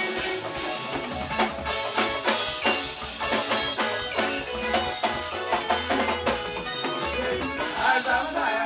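Live band music with a steady drum-kit beat and electric guitars; a man's singing voice comes in near the end.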